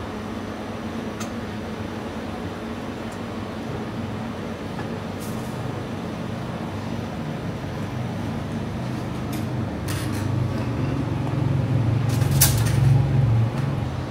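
Low steady rumble that swells louder in the last few seconds, with a few light clinks of glassware while tea is poured from a samovar teapot into a glass.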